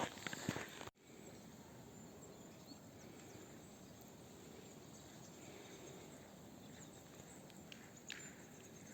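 Near silence: faint steady outdoor hiss, with a couple of faint short ticks near the end.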